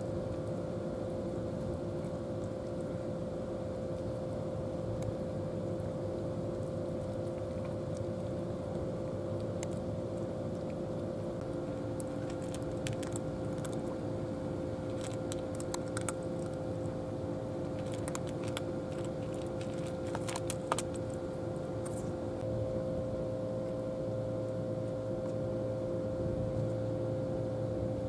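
Cat eating dry kibble: a scatter of small, crisp crunching clicks through the middle stretch, over a steady mechanical hum.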